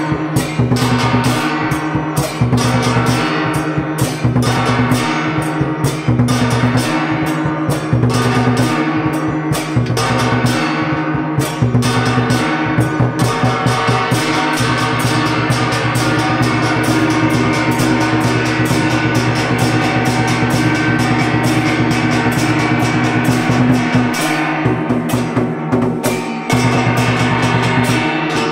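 A gong-and-drum ensemble (trống chiêng) playing: several hand-held gongs beaten with mallets and a large barrel drum, in fast, continuous strikes over the gongs' steady ringing tones.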